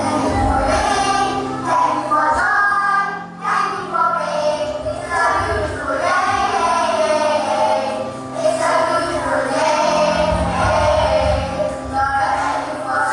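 Young children singing together as a group, with musical accompaniment holding steady low notes beneath the voices.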